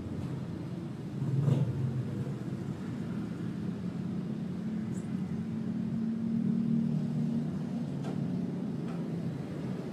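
Steady low background rumble. It swells briefly about a second and a half in and rises gently a little past the middle, with a few faint clicks.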